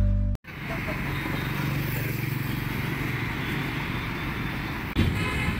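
Music cuts off abruptly a moment in, then steady street noise takes over: a low traffic rumble with a faint engine hum. It grows louder for a moment near the end.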